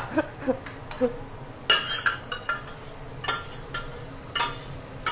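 A metal utensil clinking and scraping against a stainless steel pot as it is emptied into a wok: several sharp metallic clinks with a short ring, spaced out over the last three seconds.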